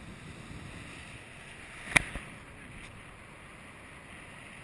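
Wind rushing over the camera's microphone in paraglider flight, steady throughout, with one sharp click about two seconds in and a smaller click just after it.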